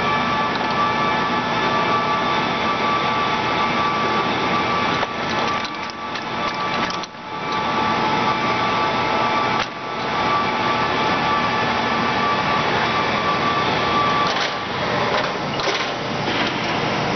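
Acer 24160G engine lathe running: a steady mechanical whir of the gears with several steady whining tones. The sound dips briefly a few seconds in and again near the middle, and the highest whine fades out about fifteen seconds in.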